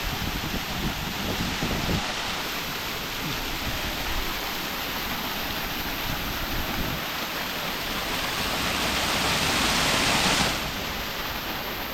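Waterfall rushing: a steady wash of falling water that swells louder and then drops back suddenly near the end.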